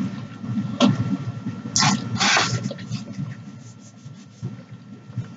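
Close-miked mouth sounds of someone chewing a mouthful of cheesy noodles: scattered smacks and clicks, with a louder pair of smacking sounds about two seconds in.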